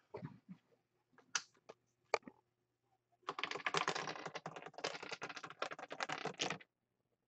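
A few separate clicks as the disc is set at the top of a Plinko pegboard. About three seconds in comes a run of rapid, clattering clicks lasting about three seconds, as the small disc bounces down through the pegs, then it stops.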